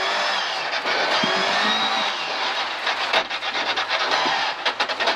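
Volvo 740 rally car's engine and road noise heard from inside the stripped cabin as the car slows for a tight left hairpin, with sharp clicks about three seconds in and a quick run of them near the end.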